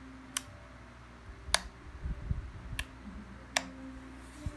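Plastic rocker power switch of a Hoyoma HTHG-2000C heat gun clicked four times between its 0, 1 and 2 positions, with low handling rumbles between the clicks.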